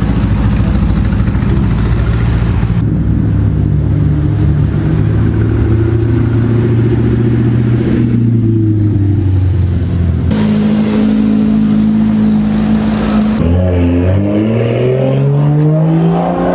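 Car engines running, heard in several short abrupt segments, then a car accelerating with its engine note rising over the last few seconds.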